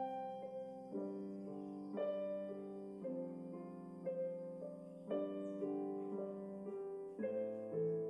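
Slow background piano music, with a new chord struck about once a second.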